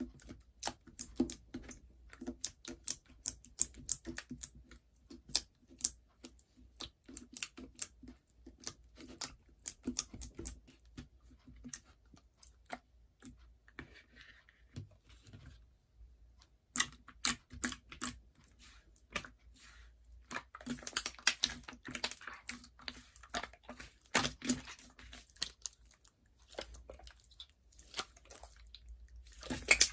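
Slime being squeezed and pressed by hand, giving an irregular run of sharp clicks and pops that gets busier in the last third.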